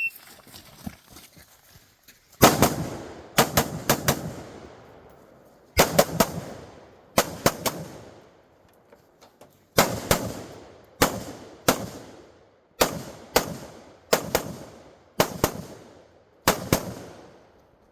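Rifle fired in a stage string: about nine bursts of mostly quick pairs of shots, a second or so apart, each shot ringing out with range echo.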